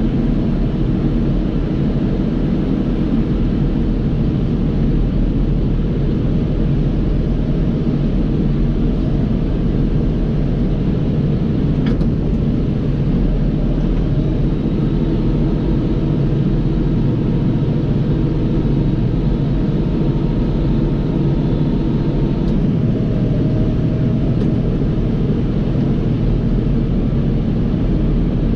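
John Deere 5075E tractor's diesel engine running steadily under load, driving a Krone KR250B round baler through its PTO as it picks up a hay windrow at low ground speed.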